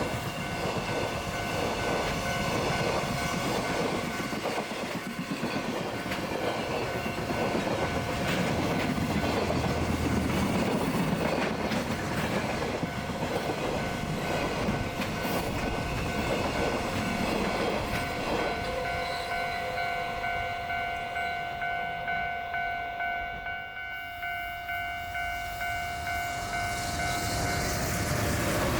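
A freight train running over a level crossing, its wagons' wheels clattering on the rails, while the crossing's warning bell rings steadily. About two-thirds of the way in the train noise dies down and the bell's evenly repeated rings stand out, then the rumble of a train builds again near the end.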